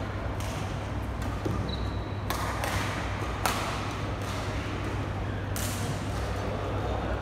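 Badminton hall ambience between rallies: a steady low hum with background murmur, broken by a few isolated sharp knocks, the loudest about halfway through, and one brief high squeak.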